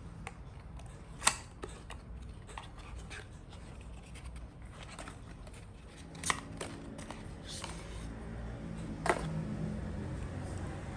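Sharp clicks and light scraping from handling product packaging, with three louder clicks about a second in, just past six seconds, and just past nine seconds.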